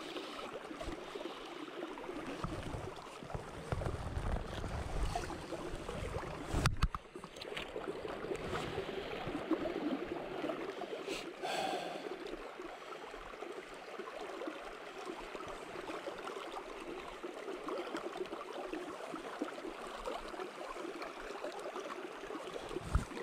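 River water swishing and gurgling around the legs of a knee-deep wading angler, with a brief knock about seven seconds in.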